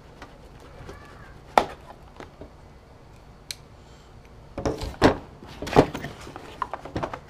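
Cardboard shipping box being opened by hand. There is a sharp click about a second and a half in, then a cluster of knocks and cardboard rustling just past the halfway point as the top flaps are pulled open. A few lighter clicks follow.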